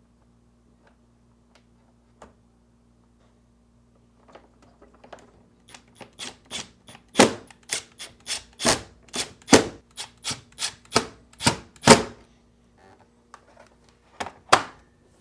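Phillips screws being driven back into a refrigerator ice dispenser door with a screwdriver: sharp clicks and ticks, sparse at first, then two or three a second for several seconds from about six seconds in, with two more near the end. A faint steady hum lies underneath.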